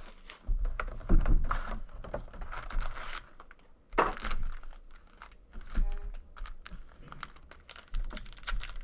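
Plastic wrapping crinkling and tearing in irregular bursts as a sealed trading-card box and its packs are opened by hand.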